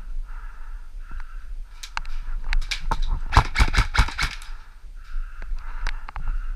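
Airsoft guns firing: scattered sharp cracks, with a quick string of shots in the middle.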